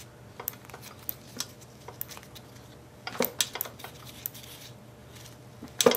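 Spark plug grounded on the head of a 1934 Briggs & Stratton Model Y, snapping as it fires in irregular sharp clicks, with a cluster a little after three seconds and a loud one near the end. The ignition coil is giving a good spark.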